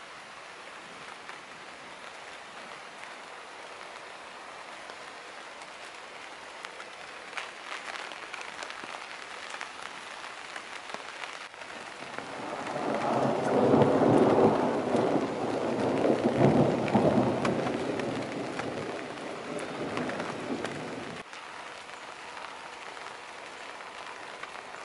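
Steady rain falling, with scattered drop ticks. About halfway through it swells for several seconds into a much louder rush, then drops back abruptly.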